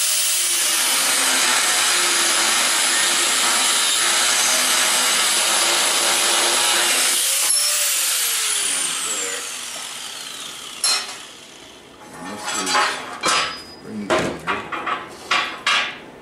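Angle grinder running and grinding on a forged steel bar. It is switched off about seven and a half seconds in and winds down with a falling whine. After that come several clinks and knocks of steel pieces being handled.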